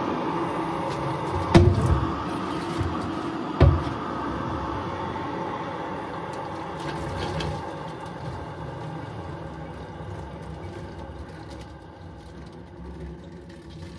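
Just-boiled water pouring from an electric kettle into a plastic water bottle: a steady filling sound that slowly gets quieter. Two sharp knocks come in the first four seconds.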